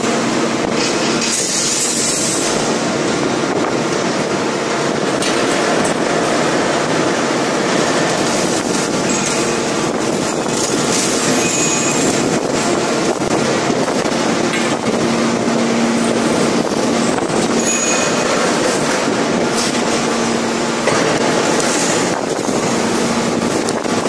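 5000-ton hydraulic open-die forging press and its plant running: a steady, loud mechanical noise with a constant hum, broken by scattered short clanks and hisses.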